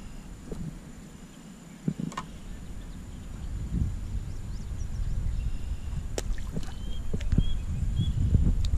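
Low, uneven rumble of wind buffeting the microphone, with a few sharp clicks in the second half and faint short high chirps near the end.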